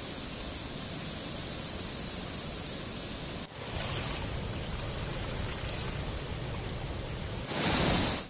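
Floodwater rushing out of a dam's open spillway gates and churning over rocks downstream: a steady rushing noise. It breaks off sharply about three and a half seconds in, then comes back, and a louder stretch of the same rush follows near the end.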